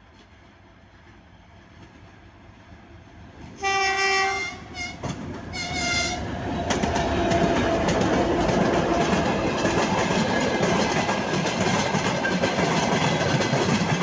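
A 2M62U diesel freight locomotive approaches and sounds its horn: one long blast about four seconds in, then a few shorter toots. It then passes close, its engine and the timber flatcars' wheels clattering over the rail joints, loud and steady for the rest of the time.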